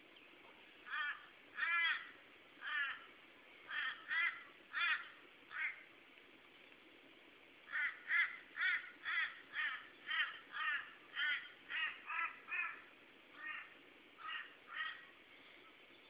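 Torresian crows calling: a run of about seven short caws, then after a brief pause a quicker run of about fourteen caws, roughly two a second.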